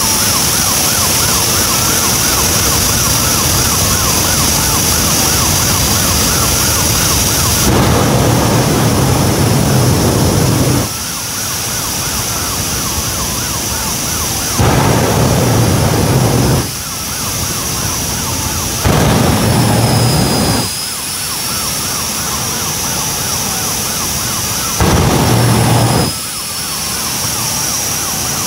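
The AfterShock jet fire truck's jet engines running with a steady high whine. Four afterburner blasts come and go, each lasting one to three seconds: a deep, loud rush as the flames shoot up. A siren wails over it.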